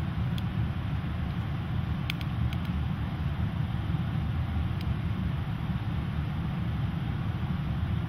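Steady low rumble with a hiss above it, holding an even level. A few faint clicks come through, several of them close together about two seconds in.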